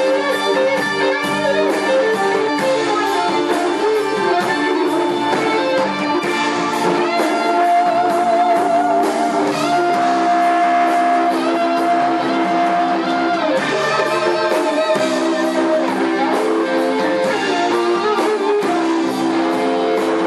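Electric blues guitar solo on a Les Paul-style electric guitar with the band playing behind it. From about eight seconds in there is a long held note with wide vibrato, lasting some six seconds.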